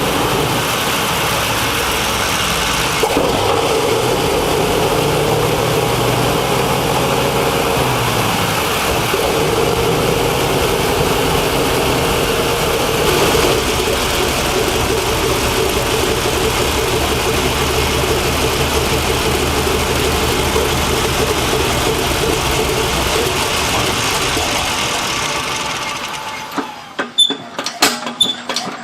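An old engine running steadily; near the end the running sound drops away and gives way to a series of sharp clicks.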